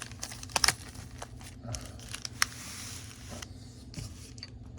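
Pokémon booster packs being handled and mixed: scattered light clicks and taps, with a short rustle around two to three seconds in.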